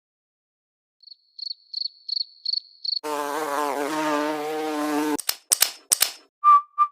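Edited sound effects: a quick run of about six high beeps, then a loud, wavering buzz for about two seconds, then a few sharp clicks and short whistled notes near the end. The effects illustrate unusual noises from a failing refrigerator.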